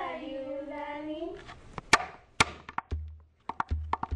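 A hula chanter holds a long, wavering note for about a second and a half. Then ipu (gourd drum) beats follow: sharp slaps, and from about three seconds in, low booms as the gourd is struck on the floor.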